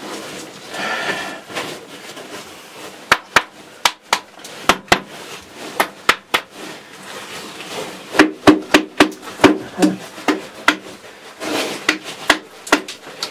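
Irregular sharp knocks of a metal tool striking rock as a caver digs in a tight cave passage. They begin about three seconds in and come thicker and faster in the second half, with a short ringing after some blows.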